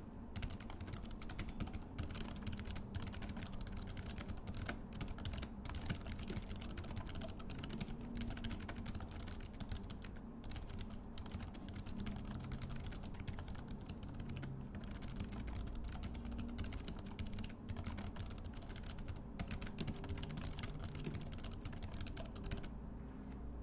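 Continuous fast typing on an IBM ThinkPad X40 laptop's scissor-switch keyboard: a dense, unbroken stream of light key clicks.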